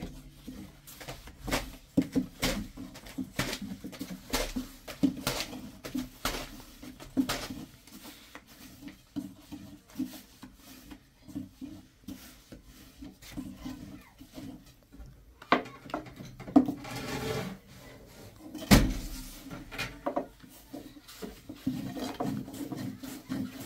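Irregular knocks, taps and clatter of objects being handled, several a second at first, with two louder thumps in the second half.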